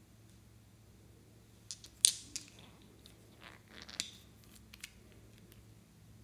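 Small plastic toy nail-polish bottles being handled and opened by hand: a sharp plastic click about two seconds in, a brief rustle, another click about four seconds in, and a couple of light taps near the end.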